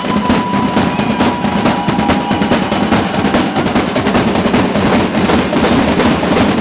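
Street band of marching snare drums and bass drum playing a fast, continuous beat.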